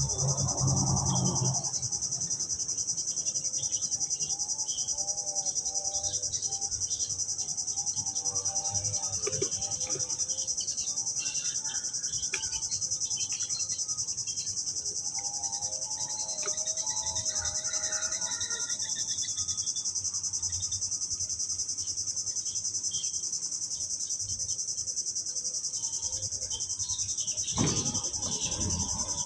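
Steady, high-pitched chorus of insects chirring in the riverside vegetation, with faint wavering tones in the middle and a short burst of noise near the end.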